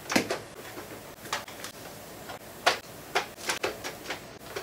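Foam Nerf Rival balls being pushed by hand into the plastic built-in hopper of a Nerf Rival Hades blaster: light, irregular plastic clicks and knocks, about two a second.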